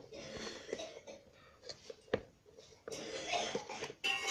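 Oiled foam air filter being pushed by hand into a Hero Splendor's plastic air filter box: stretches of scraping and rustling, with a sharp knock at the start and another about two seconds in.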